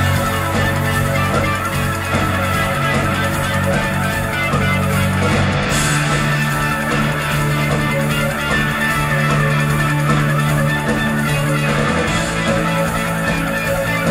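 Live rock band playing loud, with electric guitars and bass holding sustained chords that change twice, a cymbal crash marking each change. Heard from within the crowd.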